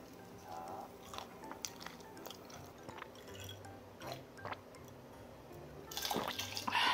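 Close-up chewing and wet mouth sounds while eating fried chicken, over soft background music, then drinking from a glass with a louder burst of mouth and breath sound about six seconds in.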